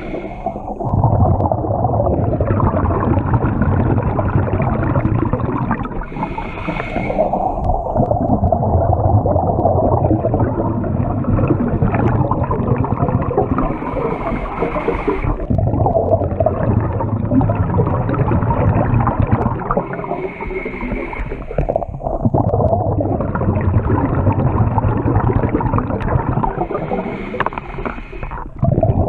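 Scuba regulator breathing heard close up underwater: a short hiss on each inhale, then several seconds of rumbling, gurgling exhaust bubbles, repeating about every six to seven seconds, five breaths in all.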